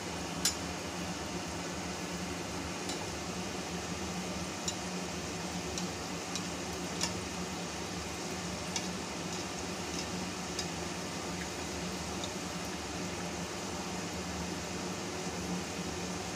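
Hot oil sizzling steadily in a kadai as a spinach-dough katori deep-fries around a steel bowl mould on a low flame, with scattered sharp pops and crackles. A steady low hum runs underneath.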